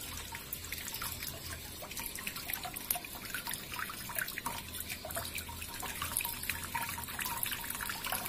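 Water trickling and dripping into a freshwater crayfish tank: a steady, dense patter of small drips, with a faint low hum underneath.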